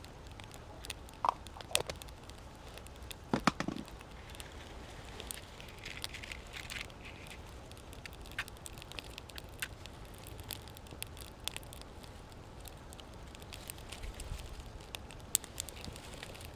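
Small wood fire burning in an improvised wood-chip stove, crackling and popping irregularly. A few louder knocks come in the first few seconds.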